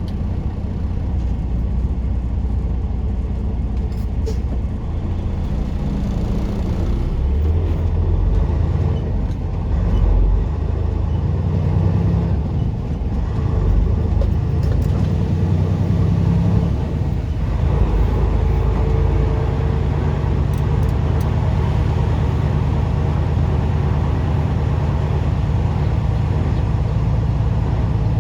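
A truck's engine and drivetrain running at low speed, heard from inside the cab, the engine note changing pitch a few times as it maneuvers. The drivetrain sounds rough, which the driver puts down to the transmission that he has brought in for repair.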